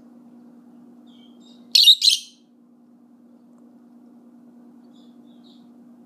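Pet lovebird giving two loud, high-pitched calls in quick succession about two seconds in, with a few soft chirps before and after.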